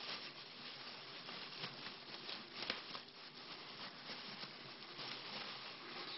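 Light pattering and scratching of small animals moving about, many small clicks and scrapes, with one sharper click about two and a half seconds in.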